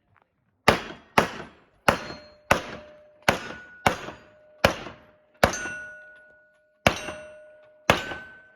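Ten gunshots in quick succession, roughly one every half to three-quarters of a second with a longer gap near the end, as steel targets are engaged; a ringing tone of struck steel hangs on after the later shots.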